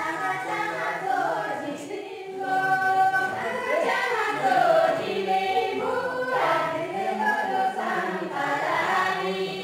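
A group of voices singing a Kinnauri folk dance song together.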